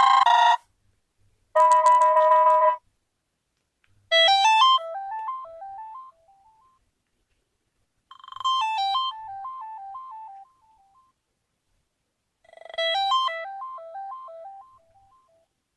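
Electronic ringtones from a UMX mobile phone. A short tone at the very start, then a steady electronic tone held for about a second, then a quick run of stepping electronic notes that plays three times, about four seconds apart, each fading away.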